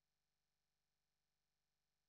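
Near silence: digital quiet in a pause of a speaker's talk.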